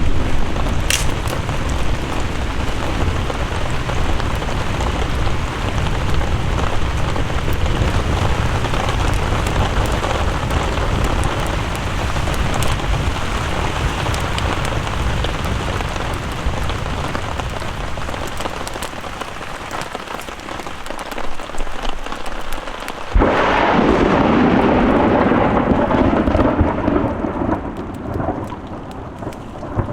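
Thunderstorm: steady heavy rain with low rolling thunder, then a sudden loud thunderclap about three-quarters of the way through that rumbles on for several seconds before fading.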